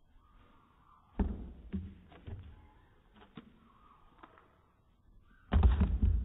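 A German Shepherd's paws and body thudding on wooden deck boards as it runs, jumps and lands: a few single thumps, then a louder cluster of thuds near the end as it tumbles onto its back.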